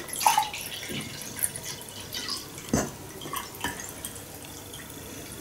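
Carbonated mineral water poured from a plastic bottle into a mug, trickling and fizzing with many small ticks. About three seconds in comes one short burp, something between a hiccup and a belch.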